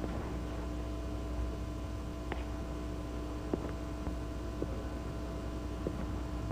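Steady low hum with hiss from a poor-quality soundtrack, with a few faint, scattered clicks.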